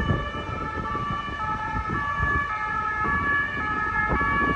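A two-tone emergency-vehicle siren, switching back and forth between two pitches about every half second, over a low rumble of street noise.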